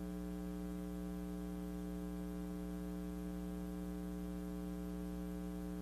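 Steady electrical mains hum with a buzzy edge from the sound system, even and unchanging, with no voice over it.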